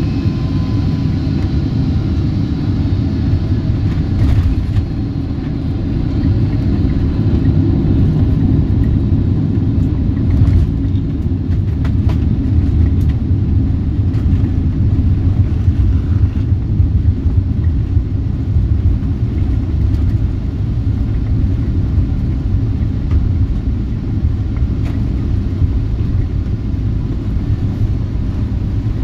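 Boeing 777-200ER airliner cabin noise during landing: a steady low rumble, with a few short knocks and rattles scattered through it. A faint high whine fades out in the first second.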